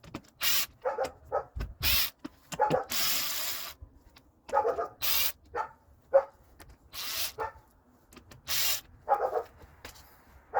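A dog barking repeatedly in short, irregularly spaced barks, with a longer hissing or scraping noise about three seconds in.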